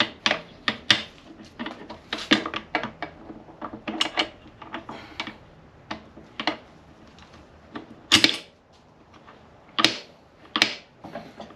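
Irregular metallic clicks and knocks of steel gears and a shaft being handled and seated in a Honda Prelude transmission's aluminium case as the reverse idler gear is fitted, with louder knocks about eight and ten seconds in.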